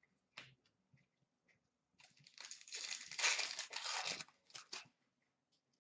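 Foil trading-card pack wrapper crinkling and tearing for about two seconds, starting about two seconds in, with a few light clicks from cards being handled before and after.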